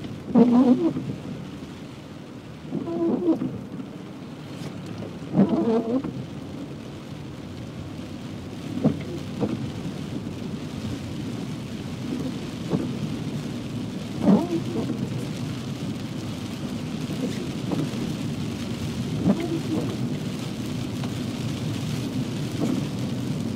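Heavy rain on a moving car, heard from inside the cabin, over steady tyre and road noise on a wet road. Short pitched sounds come every few seconds, loudest in the first few seconds.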